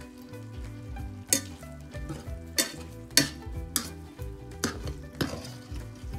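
Squid and sliced garlic sizzling in butter in a frying pan while a metal wire skimmer stirs them, knocking sharply against the pan about six times. Background music plays under it.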